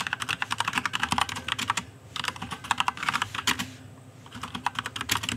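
Computer keyboard typing in quick runs of keystrokes, pausing briefly about two seconds in and again around four seconds in.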